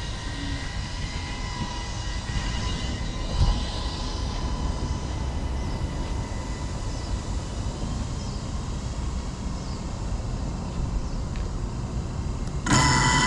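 Distant FPV racing quadcopter flying, its propellers giving a faint wavering whine over a steady low rumble. Louder music comes in near the end.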